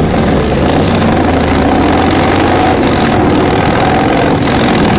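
A motorcycle engine running loud and steady.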